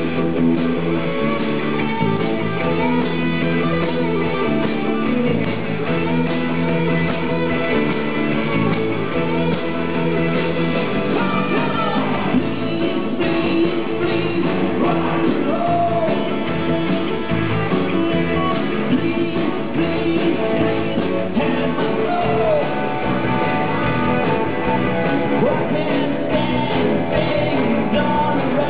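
Live rock band playing: electric guitars and bass under a male lead vocal, loud and steady throughout.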